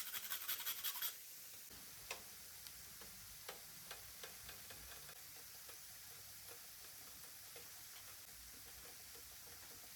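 Rapid, even scraping strokes for about the first second, then stop. After that come vegetables frying in oil in a pan: a steady faint sizzle with scattered small pops and ticks.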